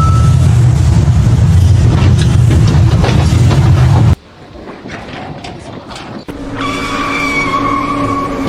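Loud, heavy engine or vehicle rumble that cuts off abruptly about four seconds in, followed by quieter machine noise with a steady high whine.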